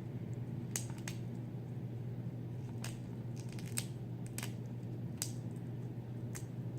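Soft, overboiled shellfish shell being ripped off by hand: a scattering of small cracks and snaps about every half second to a second. A steady low hum runs underneath.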